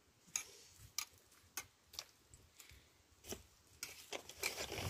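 A series of sharp taps, roughly one every half second to second, with a louder rustling noise building near the end.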